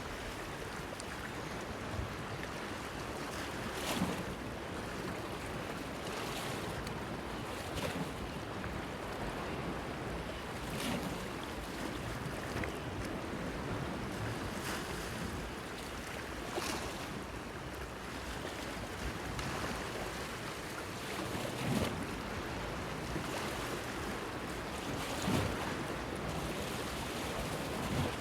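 Small sea waves lapping and splashing against a stone breakwater, with a brief splash every two to four seconds over a steady wash of water. A light wind runs underneath.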